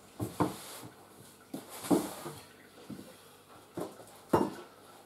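Footsteps and shuffling on a hard floor: a few irregular thumps, some with a light scuff.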